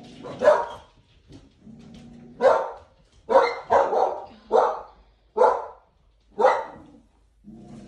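Dog barking: about eight sharp barks at an irregular pace, several in quick succession around the middle.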